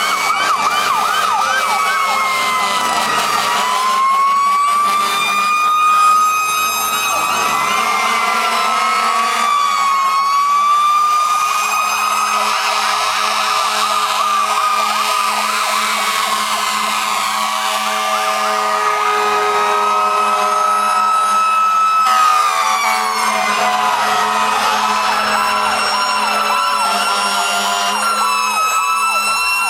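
Several fire-apparatus sirens sounding at once, slow rising-and-falling wails overlapping with fast yelping sweeps, loud throughout as the fire vehicles pull out one after another.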